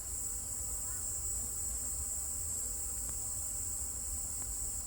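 Crickets chirping in a steady, high-pitched chorus, over a low rumble.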